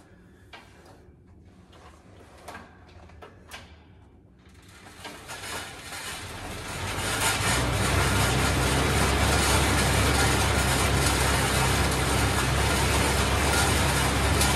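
Exercise bike being pedalled: faint clicks at first, then a steady whirring with a low hum that builds up over about three seconds and holds.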